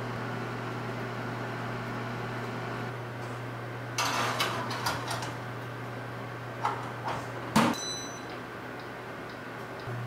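A plate and wire rack clatter in a Balmuda toaster oven, then its door shuts with a sharp knock, followed by a short high beep. A steady low hum runs underneath.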